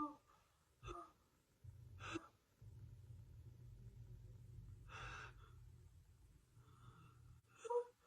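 A woman's soft breaths and sighs between sneezes during a sneezing fit: five short, quiet puffs spread over several seconds, the last one near the end with a slight voiced catch.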